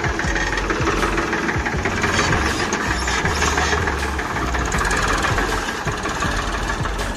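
Ford 3600 tractor's three-cylinder diesel engine running steadily at close range as the tractor moves slowly forward.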